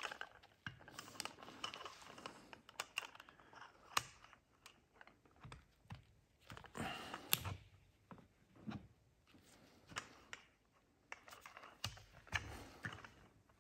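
Scattered light clicks and taps of small metal engine parts being handled on a workbench, with a few sharper ticks, as a piston wrist pin and its clip tool are fitted and adjusted.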